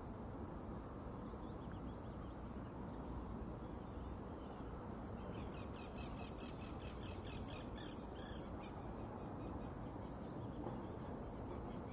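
A bird calling in a rapid series of short, high chattering notes, strongest in the middle seconds, over a steady low background noise.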